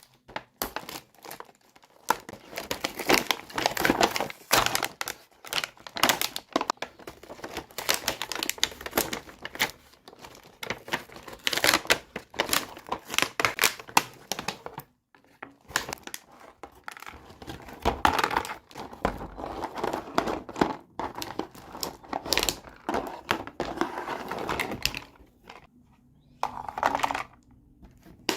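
Plastic packaging crinkling and rustling as toys are unboxed, broken by many small sharp clicks and taps, with a couple of short pauses.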